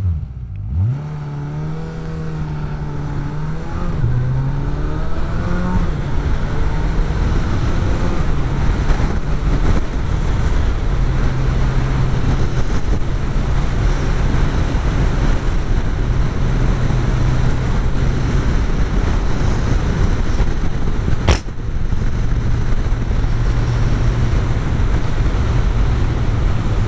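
Motorcycle pulling away from a stop, the engine revving up and dropping back through several upshifts in the first few seconds, then running steadily at cruising speed under a rush of wind noise. A single sharp click about 21 seconds in.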